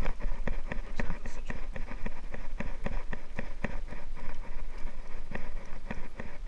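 Conventional level-wind fishing reel being cranked to bring a hooked fish up, an even run of clicks about four to five a second over a steady low hum.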